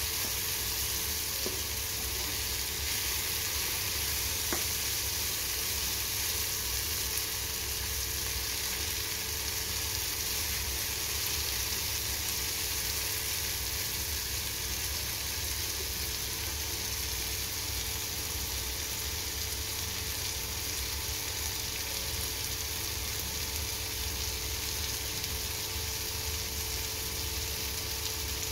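Sliced bitter gourd with tomato and onion frying in an uncovered pan, giving a steady, even sizzle as the gourd's water cooks off.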